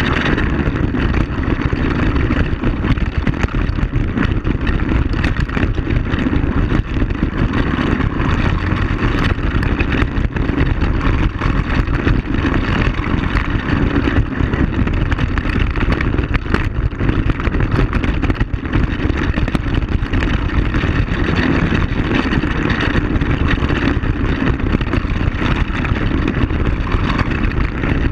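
ATV (quad bike) engine running steadily while driving, heard from a camera mounted on its front rack, with frequent small knocks and rattles from the rough gravel track.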